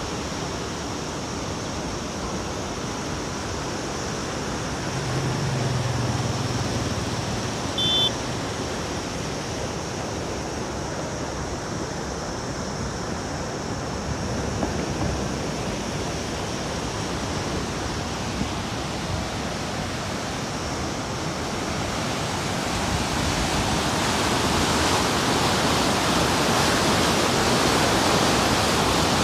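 Fast-flowing canal water rushing steadily, getting louder over the last several seconds where the current churns into white-water rapids. A brief high chirp about eight seconds in.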